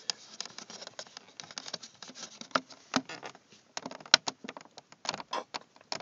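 Irregular run of small plastic clicks and creaks as the climate control panel of an Audi A6 4F is pulled by hand out of the dashboard, its retaining clips straining under force.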